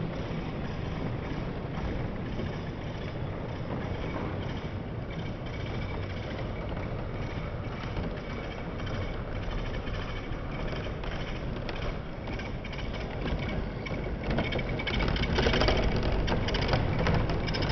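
OO gauge model train, a BR class 37 hauling Network Rail test coaches, running past with a steady rumble and hum of motor and wheels on the track. The sound grows louder near the end with a rapid clicking clatter.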